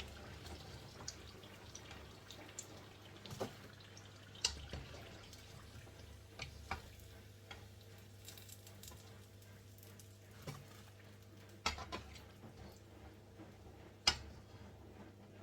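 Hot oil sizzling faintly in a frying pan, with a few sharp clicks and knocks of a utensil against the pan as the fried samosas are taken out.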